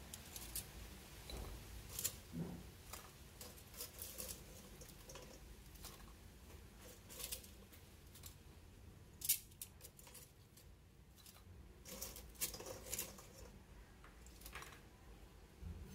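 Metal kitchen tongs clicking and tapping as fried meat pieces are picked up and set into a ceramic dish. The clicks are light and scattered, with one sharper click about nine seconds in.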